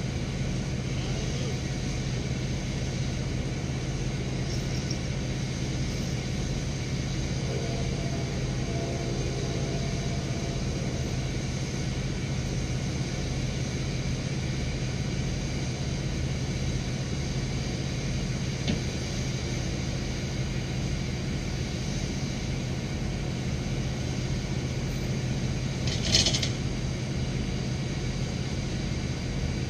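Bucket truck's engine running steadily, as when it powers the boom's hydraulics to lift logs. About 26 seconds in there is one short, sharp clank.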